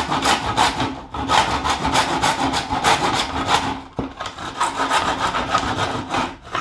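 Fine-toothed hand saw cutting a white skirting board moulding in a wooden miter box, with quick back-and-forth strokes as the cut nears its end. The strokes break off briefly about a second in and again about four seconds in.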